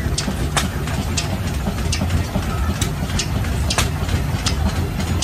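Large Fairbanks Morse stationary engine running with a steady low throb, with sharp clacks that come about once a second at uneven intervals.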